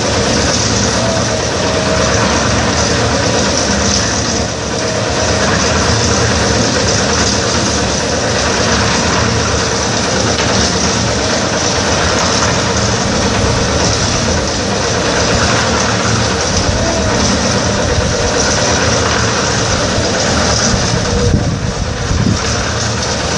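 Portable drum concrete mixer's engine running steadily as it mixes concrete.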